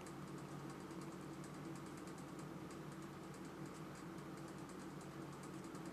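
Faint, irregular light tapping or clicking over a steady low hum.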